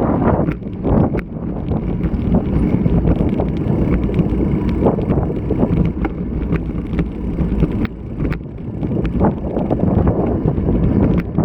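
Wind buffeting the microphone of a bike-mounted action camera while riding in strong wind, over a steady rumble of rolling tyres, with frequent sharp clicks and rattles from the bicycle.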